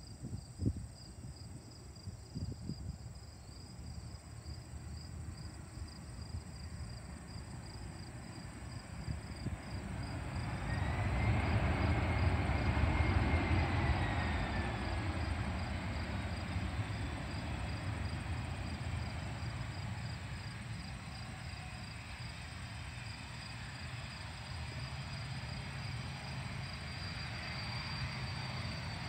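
FedEx Airbus A300 freighter's jet engines during its landing rollout. The engine noise swells about ten seconds in, with a turbine whine that rises and then falls, and then settles to a lower, steadier sound. Crickets chirp steadily behind it.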